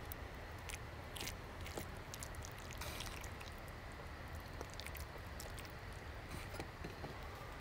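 A metal spoon stirring and scooping rice and bean stew in a stainless-steel camping pan, with scattered light clicks of the spoon against the pan over a low steady background rumble.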